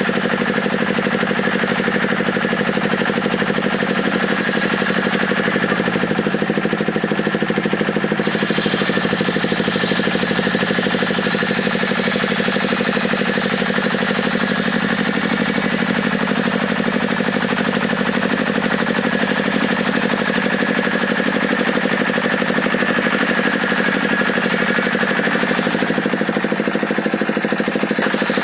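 Engine of a wood-cutting saw running at a steady speed, with an even, unchanging hum.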